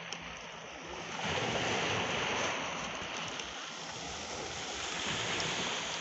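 Small sea waves breaking and washing up over a pebble beach, the surf swelling louder about a second in and again near the end.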